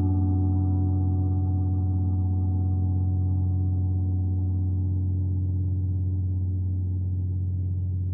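A gong ringing on after a strike: a deep, sustained tone with many wavering overtones, slowly fading, with no fresh strike.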